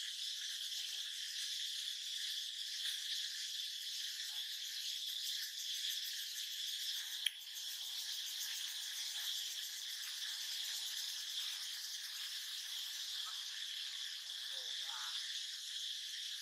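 Steady high-pitched insect chorus in forest trees, an unbroken hum, with a single sharp click about seven seconds in.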